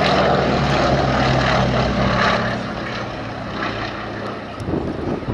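Westland Lysander's nine-cylinder radial engine droning in a propeller flypast, loudest in the first couple of seconds and then fading as the aircraft draws away.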